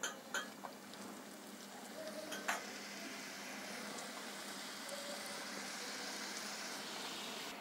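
Kajjikayalu (stuffed wheat-flour pastries) frying in hot oil in a small kadai: a steady sizzling hiss that builds from about two seconds in as more pastries go into the oil. There are a few light clicks near the start and a single knock about two and a half seconds in.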